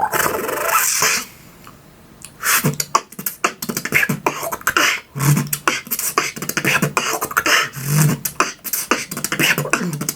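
Human beatboxing: a hissy high-pitched vocal effect for about a second, then, after a short pause, a fast beat of mouth-made kicks, snares and hi-hat clicks with low bass hums.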